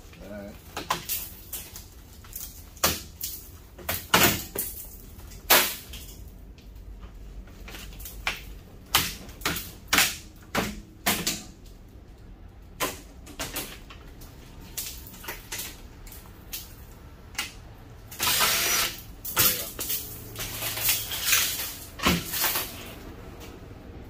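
Irregular sharp clicks and metal clanks of a microwave's parts being handled and unscrewed while its door handle is taken off, with a longer, noisier stretch of handling about three-quarters of the way through.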